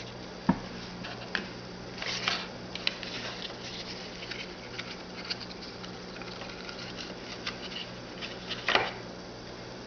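Trading cards being handled: soft clicks and brief brushing rustles as cards are slid and moved, the two biggest rustles about two seconds in and near the end, over a steady low hum.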